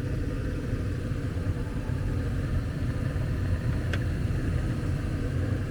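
ICP gas furnace running with its burners lit and the inducer motor on: a steady, low-pitched sound, with one brief click about four seconds in.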